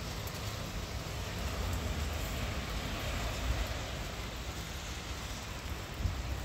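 Wet city street ambience: a low, steady traffic rumble with an even hiss, swelling a little in the middle as a vehicle passes across the street ahead.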